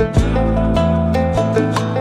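Background music: a melody of plucked string notes over a steady low accompaniment.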